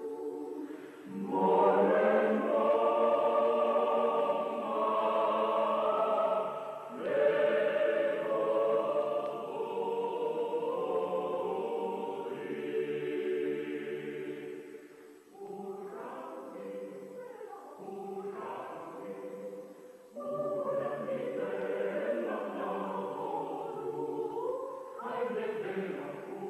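Choir singing slow, held chords in several phrases, each breaking off briefly before the next begins.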